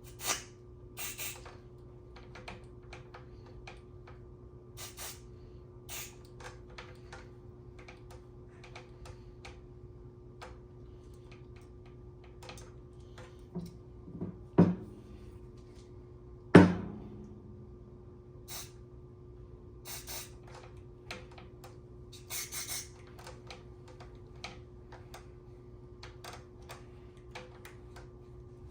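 Short hisses of aerosol contact cleaner sprayed into an amplifier's control potentiometers, among many small clicks and rattles of the knobs and shafts being worked, with two heavier knocks a little past the middle. A steady low hum runs underneath.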